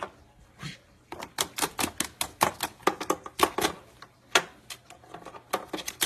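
A white-bellied caique's feet and beak tapping on hard plastic as it hops about on a game box and console: a fast, irregular clatter of sharp clicks, several a second for a few seconds, then a few scattered taps.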